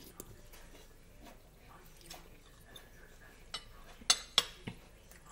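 Faint chewing, then a metal spoon clinking and scraping against a ceramic plate of stewed chicken feet and rice: four sharp clinks in quick succession in the second half.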